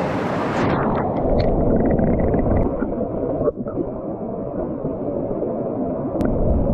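Creek water rushing, heard underwater: a dense, muffled low rush that loses its hiss about half a second in, when the microphone goes under.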